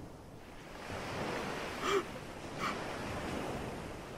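Steady rushing noise, with a man's short choked sob about two seconds in and a fainter one just after.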